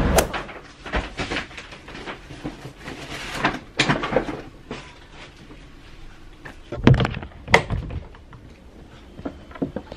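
Scattered knocks and clicks with a few heavier thuds, the loudest two about seven and seven and a half seconds in, like doors or cupboards being opened and shut.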